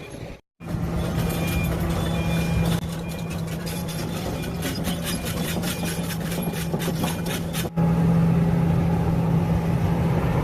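A SANY SY365H excavator's engine running steadily with a low hum. A rapid clatter rides over it through the middle few seconds, and the machine is louder for the last couple of seconds.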